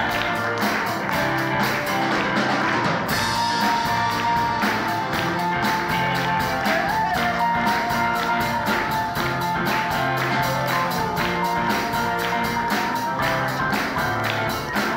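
Live band music: a man sings lead into a microphone over a drum kit playing a steady, fast beat of about four hits a second, with held instrumental notes underneath.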